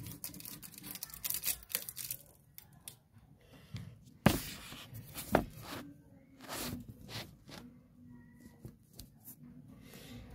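Handling noise: light clicks and rustles from hands moving things about, with two sharp knocks about four and five seconds in, the first the loudest.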